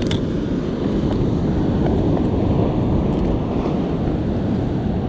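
A steady rush of wind buffeting an action camera's microphone, mixed with ocean surf washing over a rock ledge.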